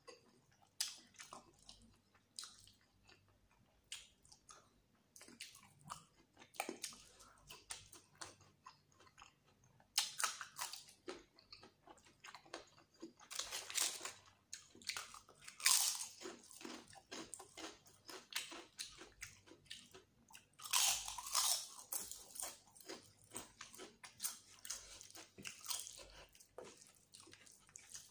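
Close-miked chewing and lip-smacking of handfuls of rice and chicken curry: irregular wet clicks and crackles, louder in stretches around the middle and about three quarters through. Now and then a wet squelch as a hand mixes rice into gravy on the plate.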